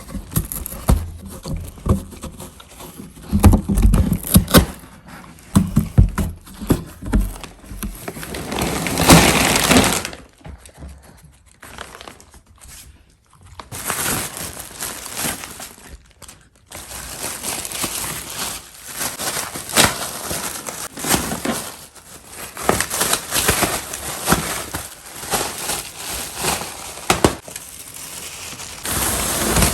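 Plastic packaging air cushions crinkling and being knocked about and crushed by a playing miniature poodle, with many sharp cracks and thuds. The sound eases off for a few seconds about a third of the way in.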